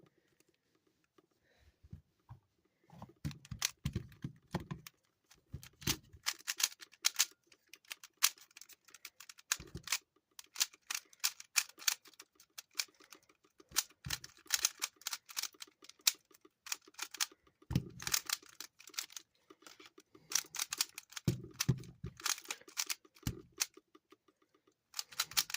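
Standard Rubik's Cube turned rapidly with one hand during a timed solve: a fast, uneven stream of plastic clicks and clacks, with a few dull knocks mixed in.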